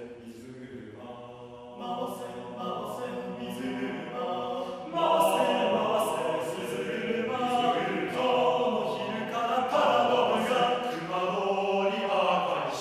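Men's a cappella ensemble singing in close harmony, the voices swelling louder about five seconds in.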